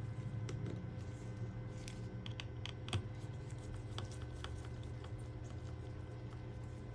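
Scattered light clicks and taps of small repair tools working on a Samsung Galaxy A20 smartphone during disassembly, over a steady low hum.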